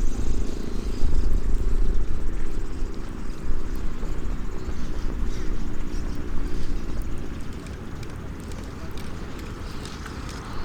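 A motor's drone passing by, a steady low hum that fades away about three quarters of the way through, over a low rumble, with faint crackles of a small wood fire.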